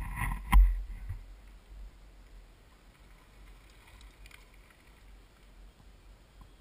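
Low wind rumble on the microphone. In the first second a brief high tone sounds and a sharp knock stands out as the loudest moment; after that only faint ticks and rustle.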